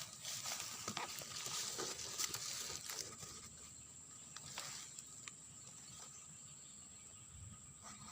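Outdoor fishing-spot ambience: a steady high insect drone with a hiss that eases after about three seconds, and a few small scattered clicks.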